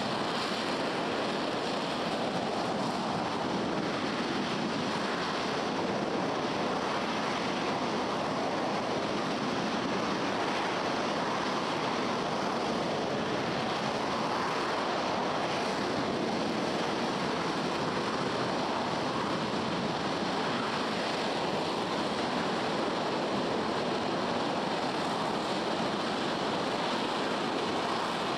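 RS-25 liquid-hydrogen rocket engine firing on a test stand: a steady, unbroken rush of exhaust noise heard from a distance, even in level throughout.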